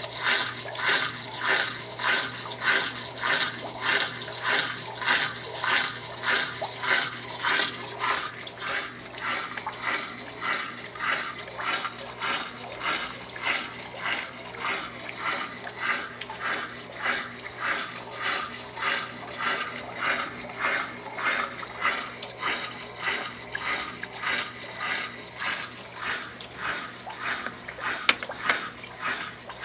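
Consul Maré Super top-loading washing machine agitating its load: water and clothes sloshing in a steady back-and-forth rhythm over the motor's low hum, with a single sharp click near the end.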